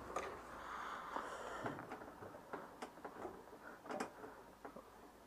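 Faint, irregular clicks and light metallic scraping of hand work on a Citroën 2CV's threaded headlight-adjustment rod as it is worked into its thread, with a short scrape about one and a half seconds in.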